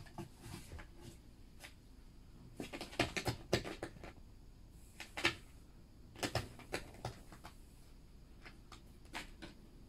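A cat gnawing and scratching at a cardboard box from the inside: crisp crunching bites in several short runs of quick clicks.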